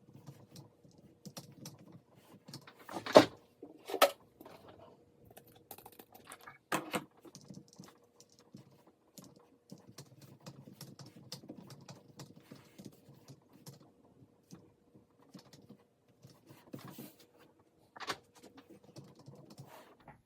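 Typing on an Apple A1048 keyboard: a steady patter of key clicks with a few much louder strikes, the loudest about three seconds in.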